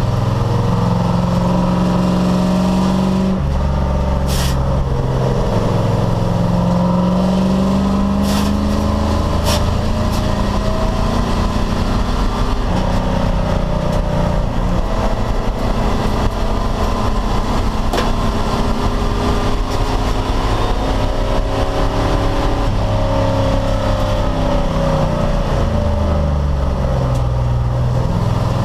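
Race car engine running hard at speed, its pitch climbing and dropping in steps as it works through the gears, with a few sharp clicks in the first third.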